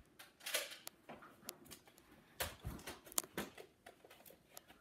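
Scattered soft clicks and knocks with two quiet puffs, about half a second and two and a half seconds in: Nerf foam-dart blasters being handled and fired, along with the camera being moved about.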